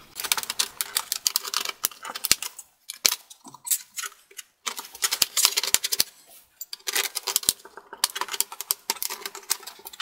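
A thick guitar pick being worked along the seam of an HP Notebook 15-ab168ca's palm rest to pry it off, with rapid clicking and snapping from the case in several runs of a second or two each.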